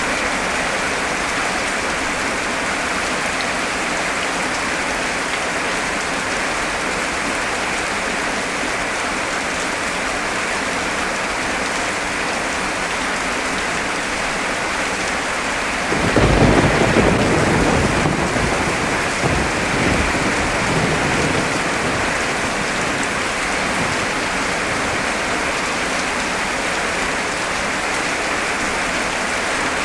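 Heavy rain falling steadily. About halfway through, a thunderclap breaks in suddenly, the loudest sound here, and rumbles on for several seconds before fading back under the rain.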